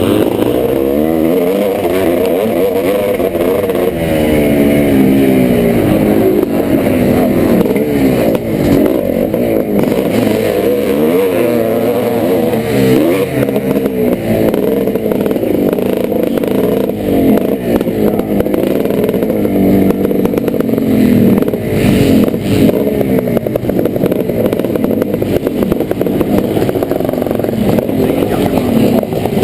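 1986 Yamaha YZ490's single-cylinder two-stroke engine at race pace, its pitch rising and falling every second or two as the throttle is worked and gears change.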